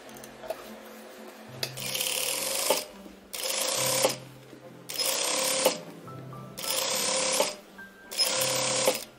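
Sewing machine stitching rows of shirring with elastic thread in the bobbin, run in five short bursts of about a second each with brief pauses between, starting about a second and a half in.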